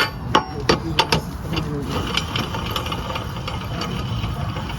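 An engine running steadily, with several sharp knocks in the first second or so.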